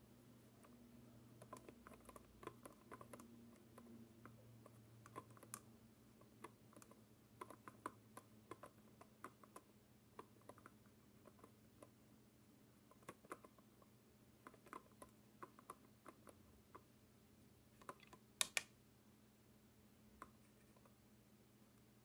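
Dial knob of a combination password locker clicking step by step as it is turned to enter a combination, in short runs of light clicks, with a louder double click about three-quarters of the way through.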